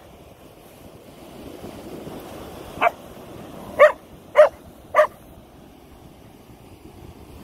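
Keeshond barking at a feather it fears: one bark about three seconds in, then three quick barks about half a second apart, over a steady background rush.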